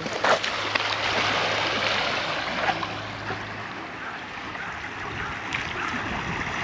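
Small waves washing and trickling over a pebble shore, a steady rush of surf, with one brief knock near the start.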